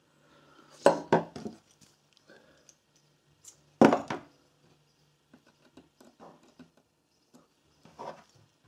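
Metal hand tools being handled and set down: a few sharp clinks and knocks, the loudest about four seconds in, then lighter ticks.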